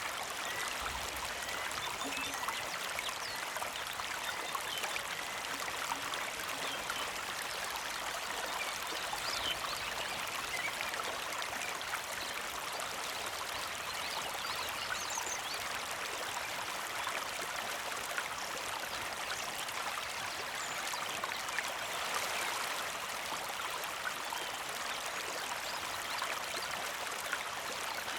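Small creek flowing steadily over stones, a continuous trickling and splashing with many small droplet sounds.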